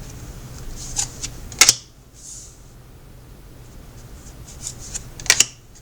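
Tarot cards being handled and laid out on a table: a few sharp card snaps and taps, the loudest about a second and a half in and again near the end.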